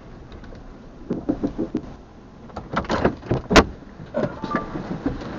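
Clusters of short knocks and clatters inside a car, with one sharp loud click about three and a half seconds in.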